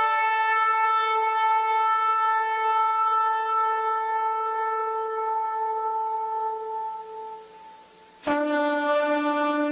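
Shofar (ram's horn) sounding one long, steady blast that fades out about eight seconds in. After a brief pause a new, lower-pitched blast starts abruptly.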